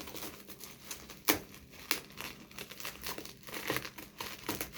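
Package wrapping being handled and opened by hand, with irregular crinkling and crackling.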